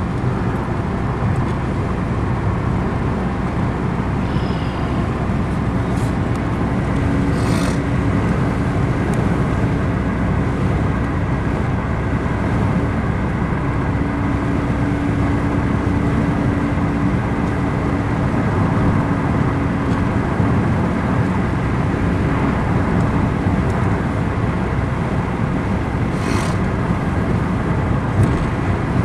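Steady road and engine noise inside a moving car, an even rumble with a faint steady hum through the middle and a couple of light clicks.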